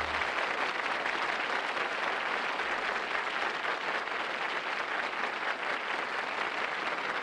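Studio audience applauding steadily at the end of a musical number.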